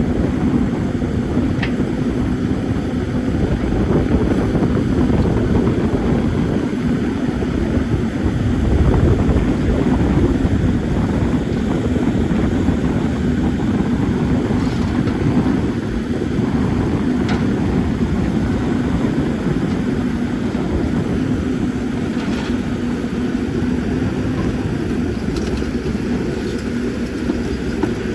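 CAT 320D excavator's diesel engine running steadily at working revs, a constant low drone with a held hum, with a few faint ticks scattered through.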